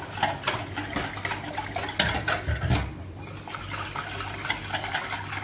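Wire whisk beating a thin chocolate milk and cornstarch mixture in a stainless steel saucepan: quick wet sloshing with the wires clicking and scraping against the pan, busiest about two to three seconds in. A steady low hum runs underneath.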